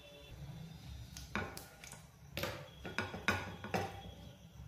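Silicone-headed spatula knocking against a non-stick frying pan, several sharp clicks over a couple of seconds in the middle.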